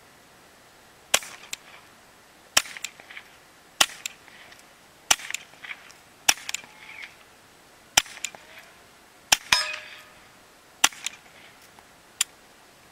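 Nine shots from a .22 pistol fitted with a Gemtech suppressor, fired one at a time about every one and a half seconds. Each shot is a sharp, fairly quiet crack followed by a few softer ticks.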